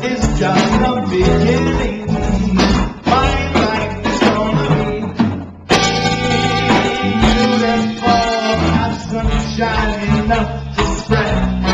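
Live band playing an instrumental break in a swing tune: electric guitar over bass and drums, with the horn section coming in about halfway through.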